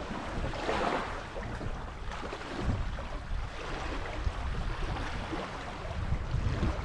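Steady wind rushing over the microphone with water noise from the open bay, a low rumbling haze and no distinct events.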